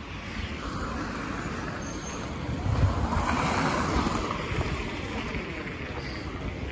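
Street traffic noise: a road vehicle passes, swelling about two and a half seconds in and fading again toward the end.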